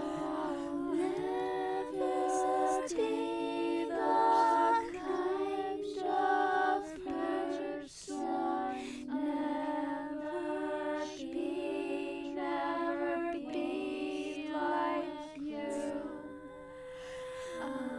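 A cappella singing: a slow melody with several voice parts layered in harmony, changing notes every second or so.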